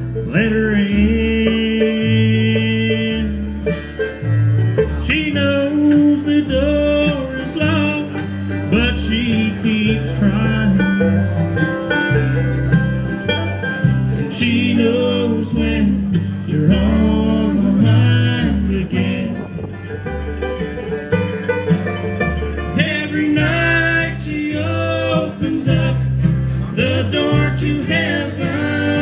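Bluegrass band playing live: banjo, mandolin, acoustic guitar and upright bass, with voices singing over the instruments.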